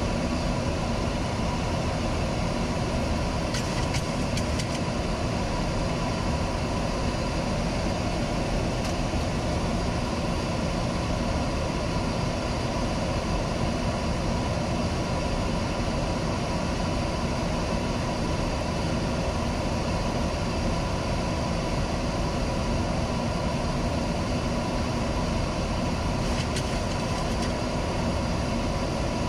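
Steady flight-deck noise of a Boeing 737-800 descending on approach: a constant rush of air and engine and air-conditioning hum that does not change.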